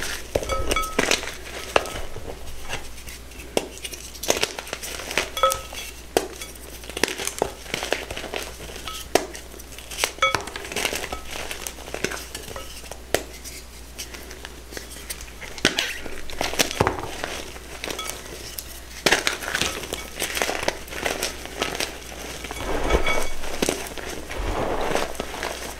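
Hands crushing and crumbling reformed gym chalk in a ceramic bowl: dense, irregular dry crunches and crackles, with a few louder stretches of grinding later on and small clinks of chalk pieces against the bowl.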